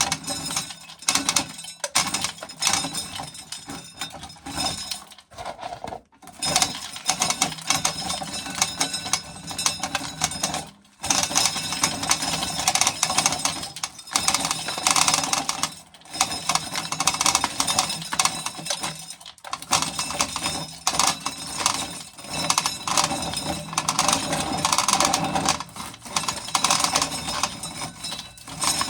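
Corn sheller stripping kernels off an ear of corn, a dense rapid rattle of kernels clattering into a can, in spells broken by short pauses every few seconds.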